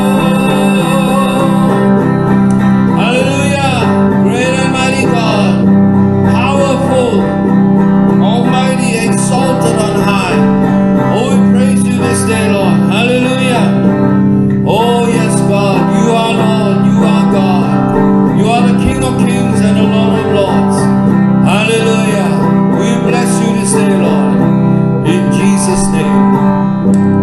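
A man singing a slow worship song while accompanying himself on an electric guitar.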